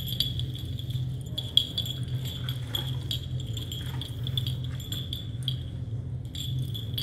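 Light metallic jingling and clinking, scattered through, over a steady low hum.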